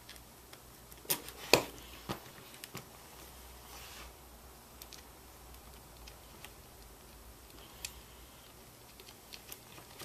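Light clicks and taps of small 4-40 machine screws and lock nuts being fitted by hand through rod ends on a wooden robot arm frame, with two sharper clicks a little over a second in and a few scattered ticks after.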